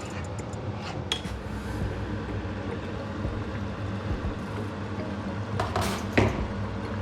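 A spoon stirring in a cooking pot, clinking against the side once about a second in and several times around six seconds in, over a steady low hum.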